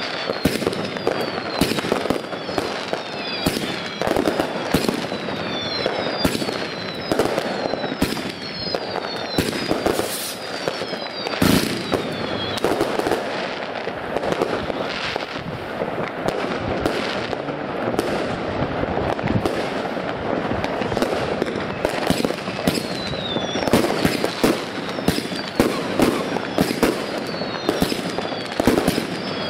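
Consumer firework batteries going off: a dense crackle of bangs and pops, with short whistles falling in pitch repeating about twice a second through the first half and again near the end. A single deeper thud comes about eleven seconds in.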